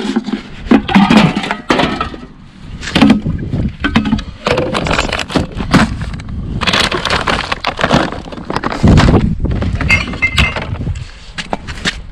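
Empty glass bottles and cans clinking and knocking together in irregular sharp hits, with rustling of packaging, as a curbside recycling box is rummaged for empties.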